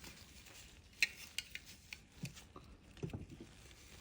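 Flathead screwdriver scraping and clicking against the plastic of a Dyson V10 Direct Drive cleaner head while prying at a stubborn retaining clip. A few faint, scattered clicks and scrapes, the sharpest about a second in.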